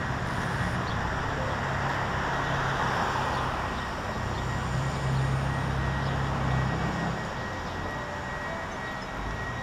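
Urban road traffic: vehicles passing on the street, with a steady low engine hum that is strongest midway and fades after about seven seconds.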